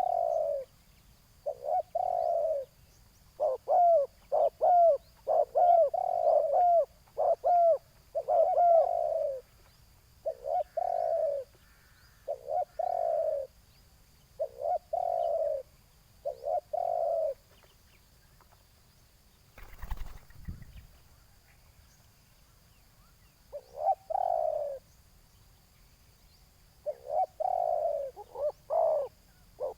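Spotted doves cooing in repeated short phrases, a decoy bird and a wild one calling back and forth. The calls pause for a few seconds just after the middle, where a brief thump sounds, then resume.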